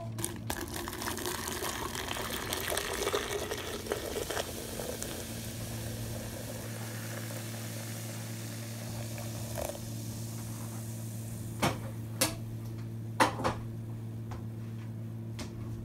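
Hot water poured in a steady stream into a plastic pitcher over a tea bag, the pouring sound fading out after about ten seconds. A few light knocks follow near the end, over a steady low hum.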